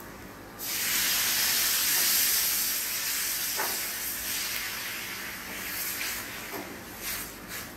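Water poured into a hot pan of oil, bacon and onion hits with a sudden loud sizzle and hiss of steam. The hiss slowly dies away, with a few sharp crackles near the end.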